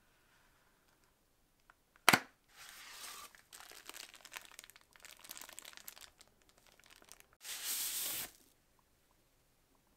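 Product packaging being handled and opened by hand: a sharp snap about two seconds in, then several seconds of irregular rustling and crinkling, and a short tearing sound near the end.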